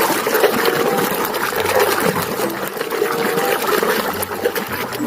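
Water running and splashing steadily over a mud-covered toy as it is rinsed clean.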